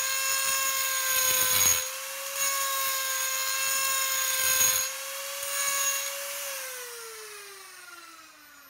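RYU RDG6-1 electric die grinder running at full speed with a steady high whine, its mounted grinding stone pressed against a metal plate in several bursts of grinding. About six seconds in it is switched off, and the whine falls steadily in pitch and fades as it spins down.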